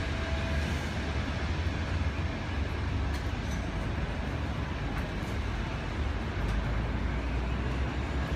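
City vehicle noise: a steady deep rumble under a constant hiss, with a few faint clicks.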